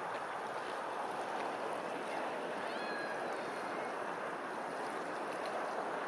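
Steady rush of rippling open water, with a faint, brief bird call about three seconds in.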